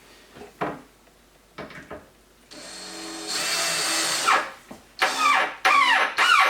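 A few light knocks, then a power drill runs steadily for about two seconds while the dishwasher is being fitted. Near the end a run of short, repeated calls begins, each rising and falling in pitch.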